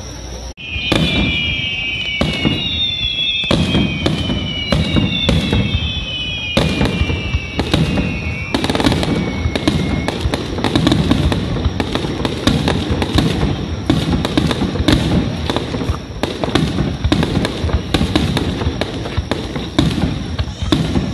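Aerial fireworks display: a rapid, irregular run of shell bursts and bangs, with several high whistles falling slowly in pitch during the first half.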